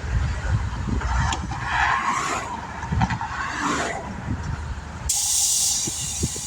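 Interstate traffic rumbling past, then about five seconds in a sudden sharp hiss of escaping compressed air that lasts about a second.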